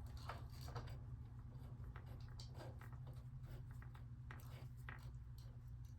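Faint, irregular light clicks and taps of hand tools and metal parts being handled, over a steady low hum.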